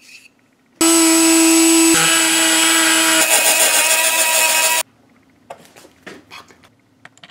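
Handheld rotary tool with a cutoff wheel running at high speed, grinding a notch into the corner of a circuit-board panel: a steady whine for about four seconds that cuts off suddenly. A few light knocks from handling the board follow.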